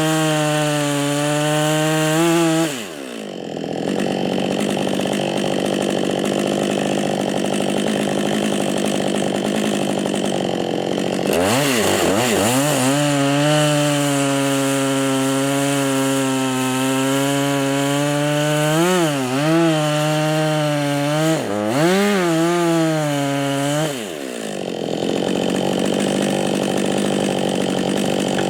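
Husqvarna 555 two-stroke chainsaw at full throttle cutting wood, its pitch dipping and recovering under load. It drops to idle about three seconds in, revs back up to cut again after about eight seconds of idling, and falls back to idle a few seconds before the end.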